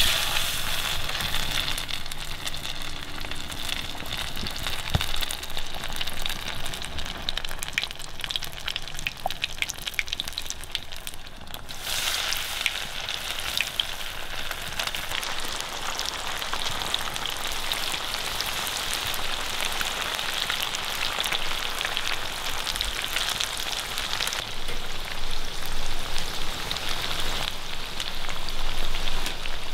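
Beer-battered rainbow trout pieces frying in hot oil in a frying pan: a dense crackling sizzle full of tiny pops. It breaks off briefly about twelve seconds in and comes back louder.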